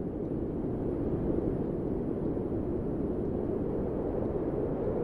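Steady low rumbling noise with no distinct tones or events.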